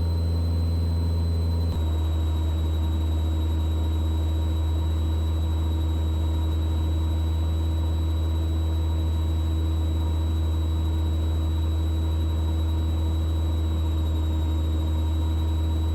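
Mooney M20E's four-cylinder Lycoming engine and propeller running steadily in a climb. A small shift in its note comes about two seconds in, and the pitch sags slightly near the end as the mixture is leaned and the power drops.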